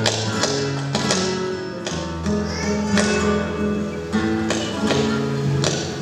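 Flamenco music with guitar, sustained notes broken by sharp strummed accents about once a second.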